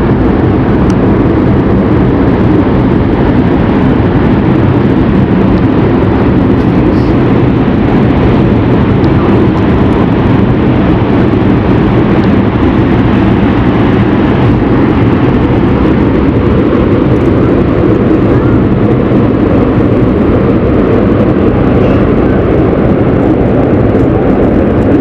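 Erupting volcanic crater venting with a loud, steady, deep roar that does not let up.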